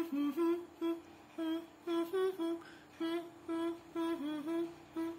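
Beatboxer humming with the lips closed: a rhythmic run of short hummed notes, mostly on one pitch with a few that dip or rise, about two to three a second, with short clicks between them.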